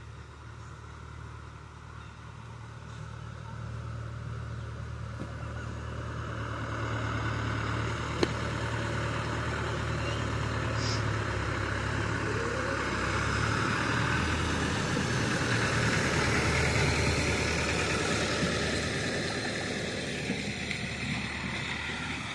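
A motor vehicle's engine running, growing louder to a peak and fading again as it passes, with one sharp click about eight seconds in.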